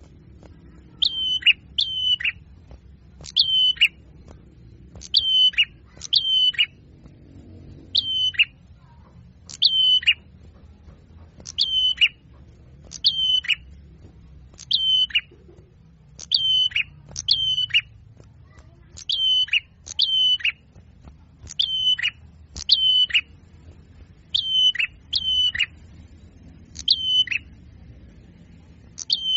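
A small bird's short, sharp call that drops in pitch, given mostly in pairs about every two seconds with machine-like regularity: a looped lure recording for attracting small birds such as white-eyes and sunbirds.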